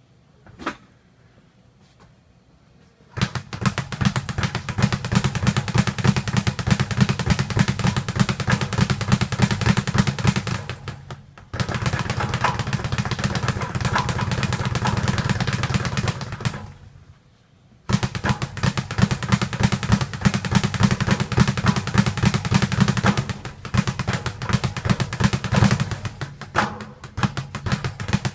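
Speed bag punched in a fast, continuous rattle of the bag against its rebound board, in three long runs. There is a short break about eleven seconds in and a longer pause around seventeen seconds. A single knock comes just before the first run.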